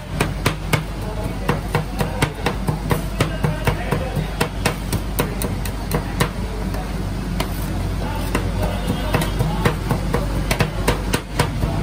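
Two steel spatulas chopping KitKat pieces into ice cream mix on the steel cold plate of a rolled ice cream pan, the blades clacking against the metal in rapid, irregular strikes, several a second, over a steady low hum.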